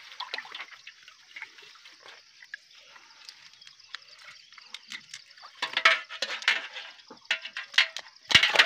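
Small fish being picked out of a wet net and dropped into a metal bowl of water: light dripping and net rustling, with clusters of small splashes and clicks in the second half.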